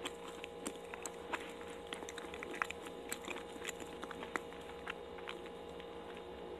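Close-miked chewing of sticky, chewy daifuku mochi: irregular wet mouth clicks and smacks, several a second, over a faint steady hum.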